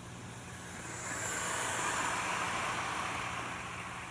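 Hornby Flying Scotsman model locomotive and its carriages running past on the track, a whirring rumble that swells as the train draws near, peaks in the middle and fades as it moves away.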